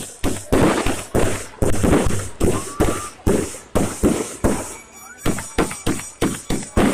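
Fireworks that have caught fire going off uncontrolled: a rapid, irregular string of bangs, several a second, with a couple of short rising whistles among them.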